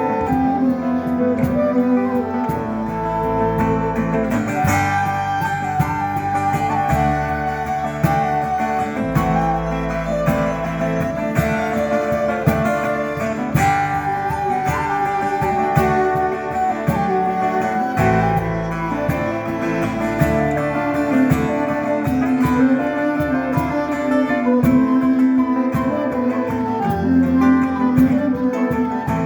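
Live band music: a plucked string instrument such as a guitar carries a melody over long bass notes that change every couple of seconds.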